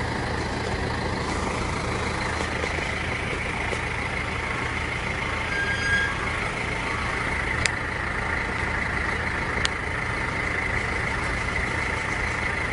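Steady low mechanical hum with a whine, like a running motor or engine. There is a brief high squeak about halfway through and two sharp clicks about two seconds apart after it.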